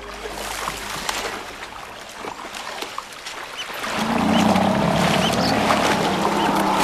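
African elephants wading and splashing in shallow river water. The splashing grows much louder from about four seconds in as a calf plunges in, with a low pitched drone underneath.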